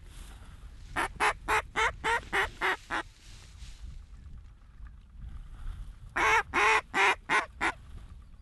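A duck call imitating a hen mallard, blown close by in a run of about eight quacks at roughly four a second, then a louder run of six near the end.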